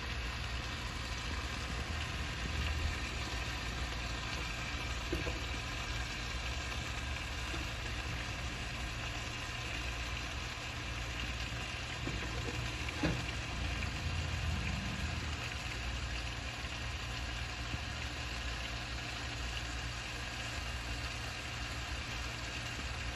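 Chicken drumsticks sizzling steadily in oil in a nonstick pan, over a steady low hum, with one light knock about halfway through.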